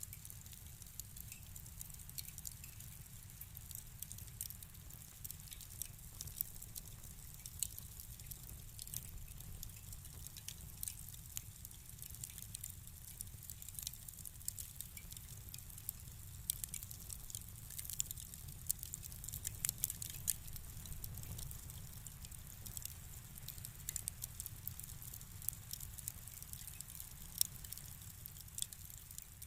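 Wood fire in a fireplace crackling, with irregular small pops and snaps over a low steady rumble.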